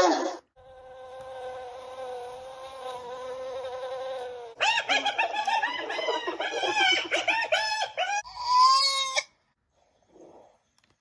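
A run of animal calls: one long, slightly wavering call held for about four seconds, then cheetah chirping, a quick run of high rising-and-falling chirps lasting about four seconds.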